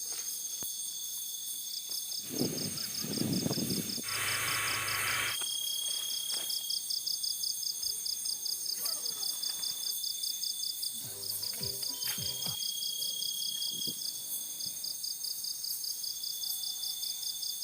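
Night insect chorus: crickets and other insects keep up a high, rapidly pulsing trill, with a brief burst of louder noise about three to five seconds in.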